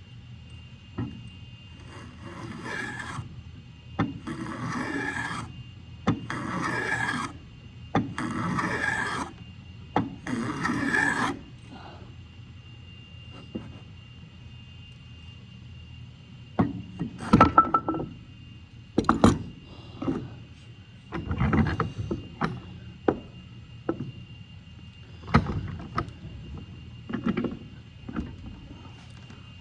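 Hand plane shaving wood in five long strokes about two seconds apart, followed by sharp knocks and a few shorter scrapes as the plane and workpiece are handled.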